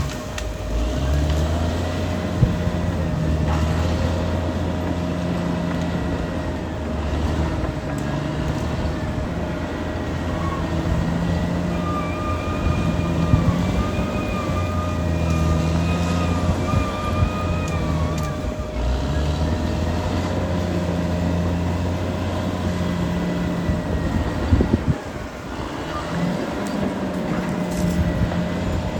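Caterpillar D6R XL bulldozer's diesel engine working under load, its low drone swelling and easing every few seconds as the load changes. A steady high whine and a wavering squeal run over the engine.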